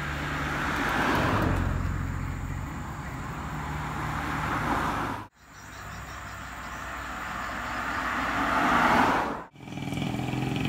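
Cars passing on an open road: tyre and engine noise of a car swelling as it goes by about a second in, then another vehicle approaching and growing louder. The sound cuts out abruptly twice.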